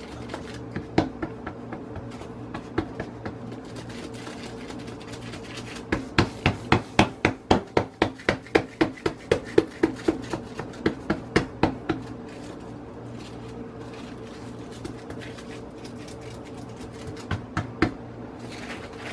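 Hands patting and pressing corn masa dough flat through a plastic sheet on a countertop: a quick run of pats, about three or four a second, in the middle of the stretch, with a few single pats before and after, over a steady low hum.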